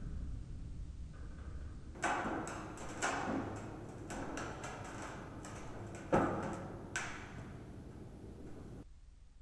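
Faint knocks and ticks with a short echo: two pairs of sharper knocks, each pair about a second apart, with a few lighter ticks between them.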